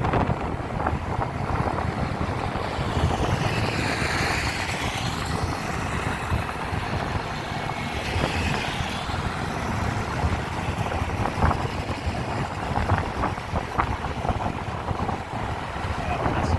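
Heavy truck running, a steady low engine rumble with road noise, and wind on the microphone.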